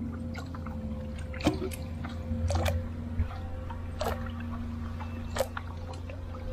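Water dripping and splashing off a gill net as it is paid out by hand over the side of a small wooden boat. Several sharp clicks and knocks are scattered through it, over a steady low hum.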